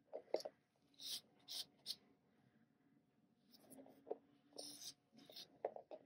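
Faint scratchy rubbing strokes: a few short ones, then a longer run about halfway through. These come from a painted board being shifted and turned on a paper-covered table.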